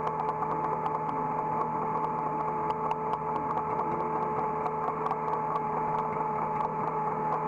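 Hydraulic excavator running, heard from the operator's cab: a steady engine drone with a steady whine over it and many light ticks and rattles throughout.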